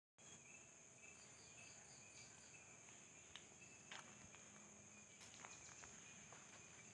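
Faint, steady, high-pitched drone of insects in the surrounding trees, with a few short chirps and scattered light clicks.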